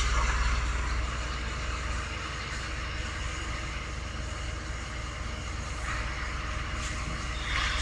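Work truck engine running steadily at idle, a low hum, a little louder in the first couple of seconds.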